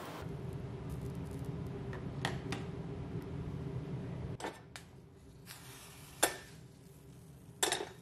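Stainless steel pan on an electric hot plate: a low steady hum for about four seconds, then quieter, with a few sharp metallic clinks, two of them loud near the end.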